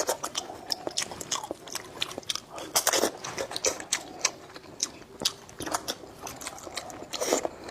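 A person chewing and biting food close to the microphone: wet, irregular crunching and clicking mouth sounds, loudest about three seconds in and again near the end.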